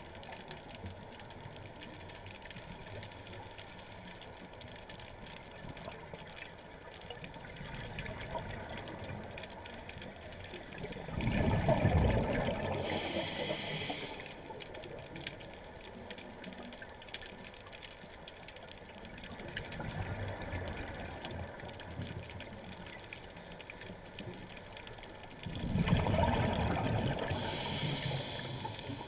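Underwater recording ambience: a steady watery hiss, broken twice by a louder rush of exhaled scuba bubbles from the diver, about eleven seconds in and again near the end.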